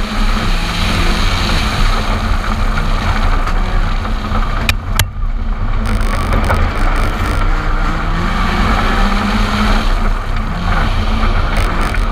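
Ford Fiesta R5 rally car's turbocharged 1.6-litre four-cylinder engine running hard on a gravel stage, its pitch stepping up and down through gear changes. About five seconds in it briefly drops in loudness just after two sharp cracks.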